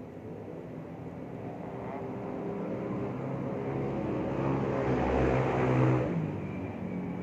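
A motor vehicle's engine, growing steadily louder over several seconds and then dropping away abruptly about six seconds in.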